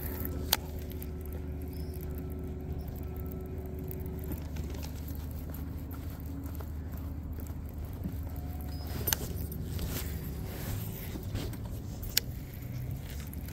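Boat's electric trolling motor humming steadily, with a higher whine that switches on for a few seconds at the start and again briefly about nine seconds in, as the motor is run in short bursts. Three sharp clicks are spread through it.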